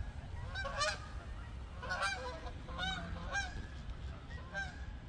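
A flock of geese flying overhead in a V formation, honking: many short calls, repeated irregularly and overlapping.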